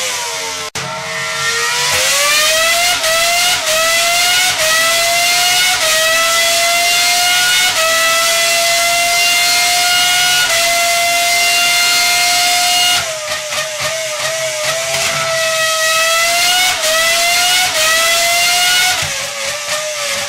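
A high-revving engine running hard, its high whining pitch climbing and dropping back in small steps, then holding steady. About 13 seconds in the pitch falls and it climbs again in the same stepped way.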